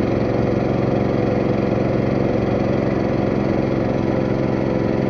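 Boat engine running steadily, a constant mechanical drone with an even, unchanging pitch.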